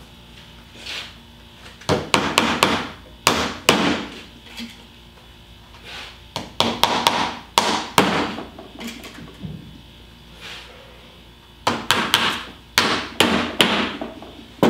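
Small hammer tapping nails through the wedge strip into the top bar of a wooden beehive frame, securing a sheet of wired beeswax foundation. The strikes come in three quick groups of several taps each.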